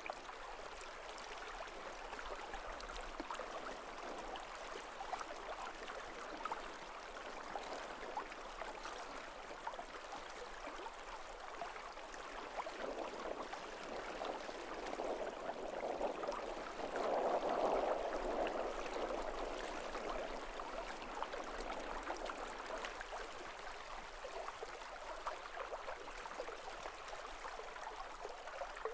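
Running water, a small stream or rapids babbling steadily, growing louder for a few seconds a little past the middle.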